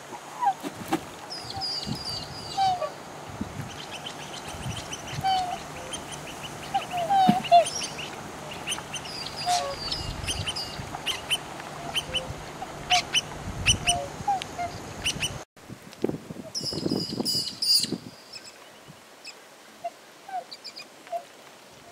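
Black swans calling on the water: many short, repeated honking calls, mixed with high chirps.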